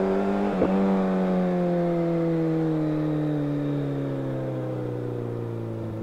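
Suzuki sport bike's engine heard from the rider's seat. Its note climbs, a short click comes about half a second in, and then the note falls slowly and steadily as the revs drop.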